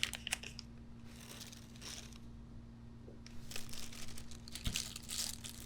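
Thin plastic bags crinkling and rustling in short bursts, about four bunches, as a packet of keyboard switch springs is opened and handled. A faint steady low hum runs underneath.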